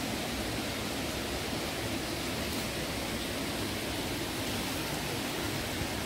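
Steady rush of water pouring down a waterfall.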